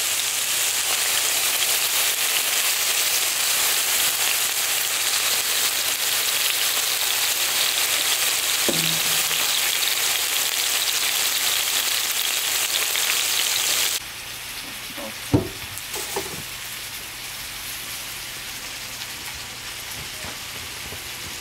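Raw chicken pieces sizzling loudly in hot oil on a large black pan lid used as a griddle. The sizzle drops much quieter about two-thirds of the way through, and a few sharp knocks follow soon after.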